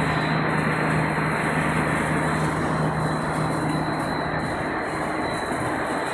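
Dog food production line machinery running steadily: a continuous mechanical drone with a low hum and a thin, steady high whine.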